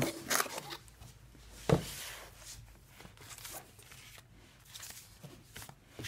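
Paper instruction booklets rustling and sliding as they are lifted out of a cardboard box. One sharp knock comes a little under two seconds in, followed by faint light handling noises.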